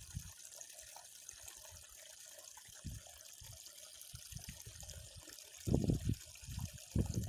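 Water trickling steadily, with a few low dull thumps about three seconds in and near the end.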